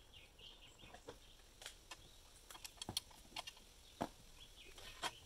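Sparse faint clicks and taps as the mounting bracket on a DeWalt miter saw stand's rail is worked by hand, with a few faint bird chirps.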